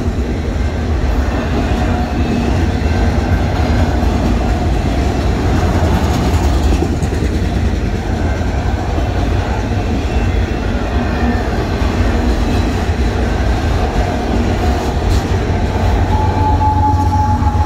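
Freight train's autorack cars rolling past: a steady rumble and clatter of steel wheels on the rails. A thin steady tone joins near the end.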